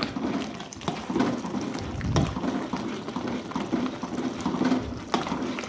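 Fish and spice paste sizzling and bubbling in a frying pan, with scattered sharp clicks and scrapes.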